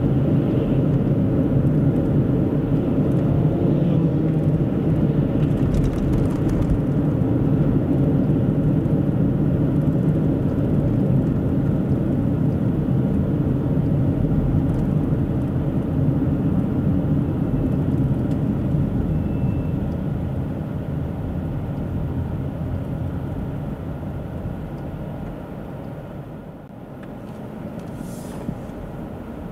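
A car driving on a highway: a steady rumble of road and engine noise. It grows quieter from about two-thirds of the way through, then picks up slightly near the end.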